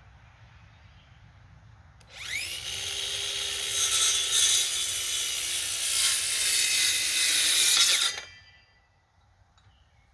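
A power tool starts about two seconds in, rising in pitch as it gets up to speed, runs loudly for about six seconds, and cuts off.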